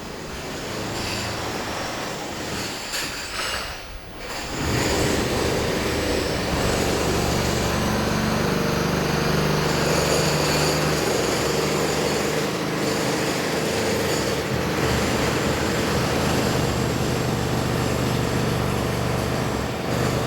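Demolition machinery tearing down a house: a loud, steady mechanical din with a low hum and grinding noise, which comes in suddenly about four and a half seconds in after a quieter stretch.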